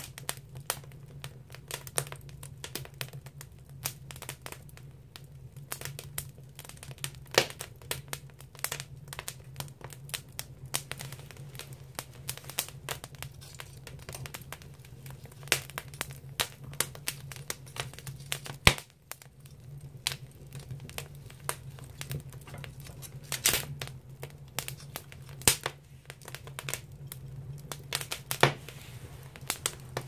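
Firewood burning in an agungi, a traditional Korean wood-fired firebox, crackling with frequent irregular sharp pops. A few pops are louder than the rest, and a low steady hum runs underneath.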